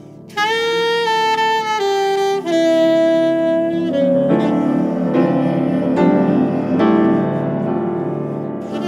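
Saxophone and piano playing a slow, melancholic duet. The saxophone comes in just after the start with a long held note, then steps down through a few long notes. Piano chords under it grow fuller from about halfway through.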